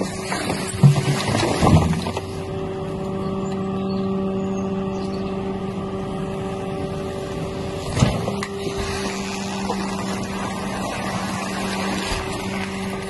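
Rear-loader garbage truck's hydraulic packer blade running through its compaction cycle, with a steady hydraulic pump and engine drone. There are loud crunches in the first two seconds as the plastic-wrapped load is crushed in the hopper, and one sharp metallic clank about eight seconds in.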